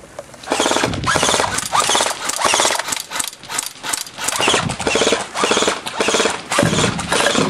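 Airsoft gun firing on full auto: several long bursts of rapid clicking shots with short pauses between them.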